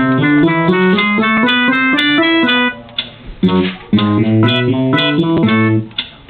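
Short upbeat instrumental theme tune of quick plucked, guitar-like notes over a climbing bass line, dropping out briefly about halfway through and then playing on to a close just before the end.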